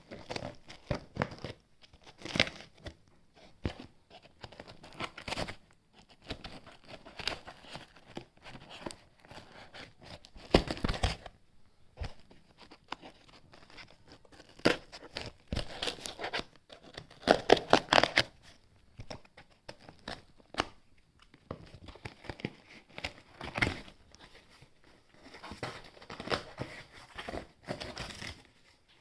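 Shipping package being torn open and unpacked by hand: tape and packaging tearing and plastic wrap crinkling in irregular bursts, with quieter handling between.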